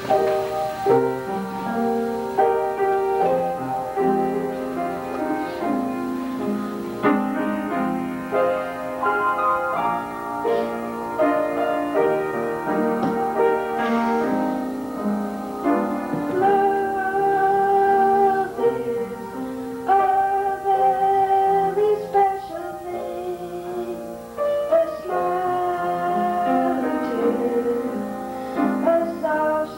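A song with piano accompaniment and singing voices, likely a children's group singing at the microphones.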